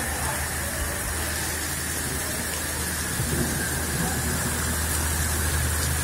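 Heavy monsoon rain pouring down, a steady, even hiss of downpour.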